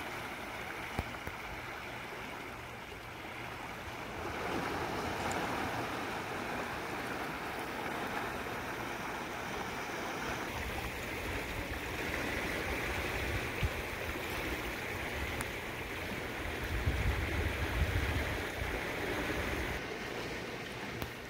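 Dam tailwater churning and rushing in swirling boils below the dam: a steady noise of moving water. Low rumbles come in about halfway through and again, loudest, near the end.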